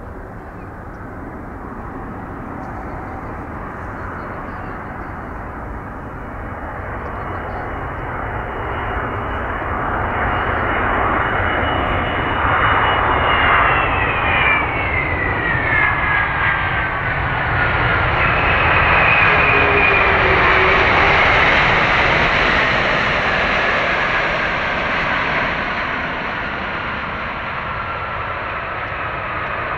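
Pratt & Whitney PW4000 turbofans of a Boeing 777-200ER landing. The jet noise grows louder as the airliner comes in low, and a high engine whine drops in pitch as it passes about halfway through. Engine noise continues, slightly easing, as it rolls out on the runway.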